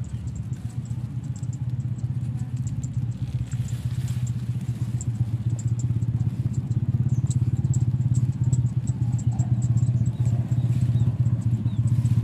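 A small engine running steadily with a low, fast-pulsing hum, growing a little louder about halfway through.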